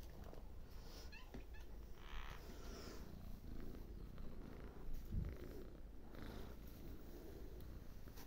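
Cat purring steadily close up while being stroked, with a brief rustle about two seconds in and a soft low thump about five seconds in.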